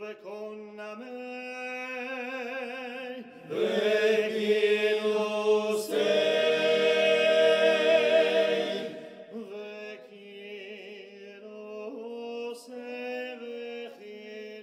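Background music of slow, chant-like singing: long held notes with a wavering vibrato over a steady low drone. It swells louder from about three and a half seconds in to about nine seconds, then goes softer.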